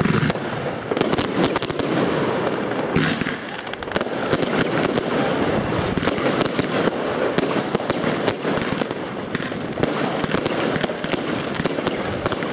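Fireworks going off with gold crackling effects: a dense, continuous crackle of many small sharp pops mixed with louder bangs.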